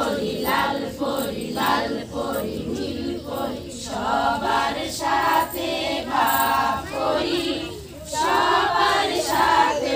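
A group of women singing a song together in unison.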